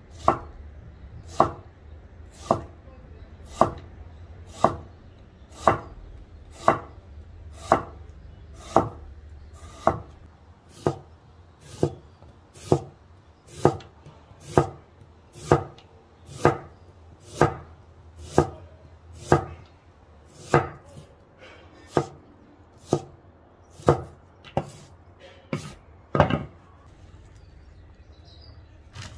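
A knife chopping food on a cutting board, in slow, even strokes about one a second, some 27 in all, the last one a little harder.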